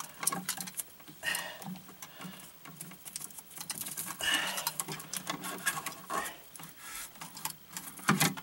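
A utility knife scoring and cutting the plastic sheathing and paper off Romex (NM) electrical cable, with irregular scratching, rustling and small clicks as the cable jacket is peeled back and the wires are handled.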